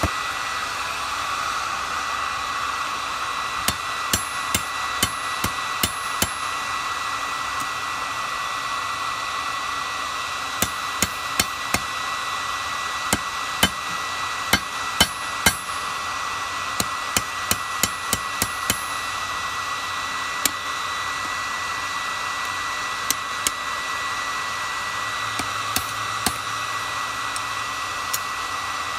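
Irregular hammer blows on steel at the anvil, in loose clusters of several strikes with pauses between. Some blows leave a short metallic ring. Under them the forge runs with a steady whooshing hum and a thin whine.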